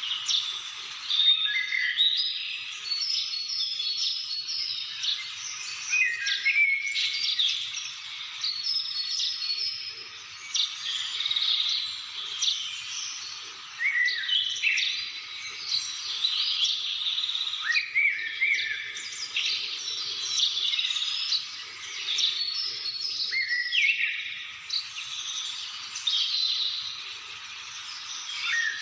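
A chorus of wild birds singing and calling at once in a bamboo forest, with many overlapping chirps, trills and whistles that never let up.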